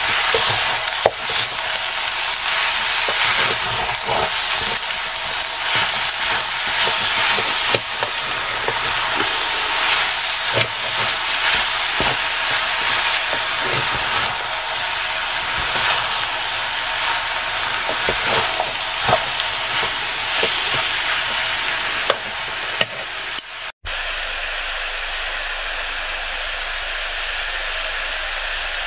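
Beef mince frying and sizzling in a Trangia pot, with a wooden spoon stirring, scraping and knocking through it to break the mince up. After a brief dropout near the end, the sizzle goes on steadily without stirring.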